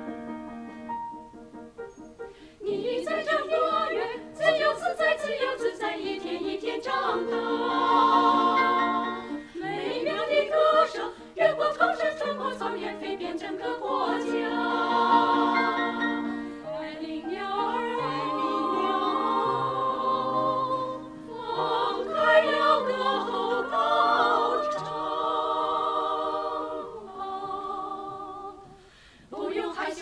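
Women's choir singing together in harmony, the voices coming in strongly about two and a half seconds in after a quieter opening, with a short break near the end.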